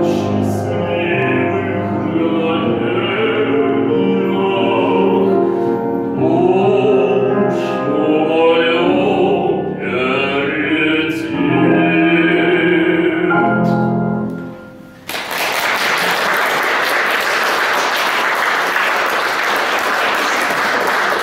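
A man singing a Russian romance with piano accompaniment; the song ends on a held note about 14 seconds in. Then an audience applauds steadily.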